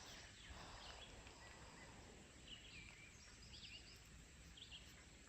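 Near silence: faint outdoor background with a few faint bird chirps in the second half.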